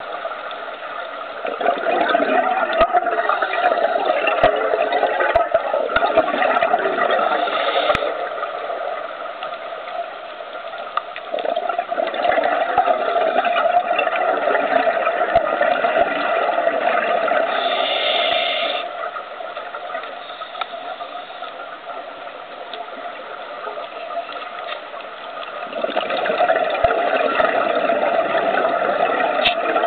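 Scuba diver's regulator breathing heard underwater: long stretches of bubbling exhaust bubbles, three times, with quieter stretches between breaths and a few faint clicks.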